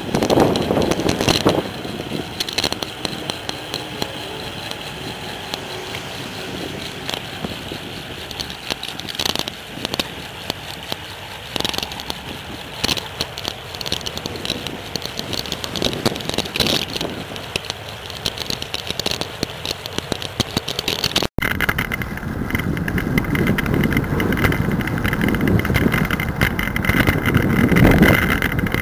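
Riding noise picked up by a handlebar-mounted camera on a moving bicycle: steady wind and tyre-on-pavement noise with frequent sharp knocks and rattles from the bike and mount over bumps. The sound cuts out for an instant about 21 seconds in, after which a heavier wind rumble takes over.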